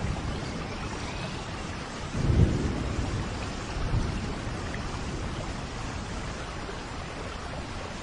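Steady rain falling, with a low rumble of thunder swelling about two seconds in and a fainter one near four seconds.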